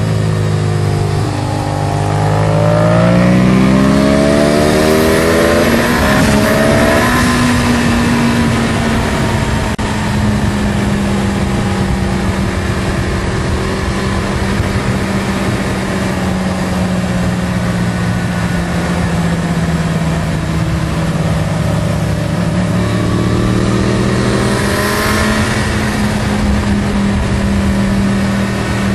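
Yamaha YZF-R1 inline-four sport bike engine pulling hard at high revs, heard from the rider's position under heavy wind rush. Its pitch rises through the first several seconds, settles into a steady high-speed drone after about seven seconds, and rises again near the end.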